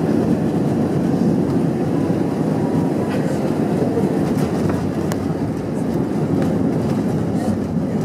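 Cabin noise of an Airbus A320 on its landing rollout: a steady low rumble of the wheels on the runway and rushing air over the wing, with a few faint ticks.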